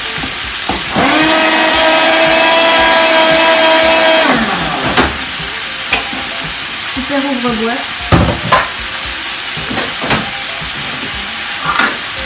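Electric can opener cutting round a tin can: its motor whines steadily for about three seconds, rising in pitch as it starts and falling as it stops. After that come several sharp clicks and knocks as the can is handled, over a steady sizzle from a frying pan.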